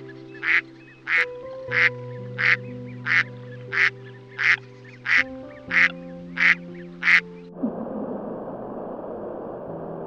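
A duck quacking in a steady series of short quacks, about one and a half a second, eleven in all, over soft background music. About three-quarters of the way through, the quacking stops and a steady rushing noise takes over.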